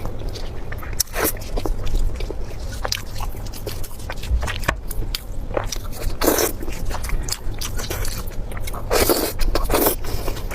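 Close-miked eating: biting and chewing food, with irregular sharp mouth clicks and a few louder bites later on.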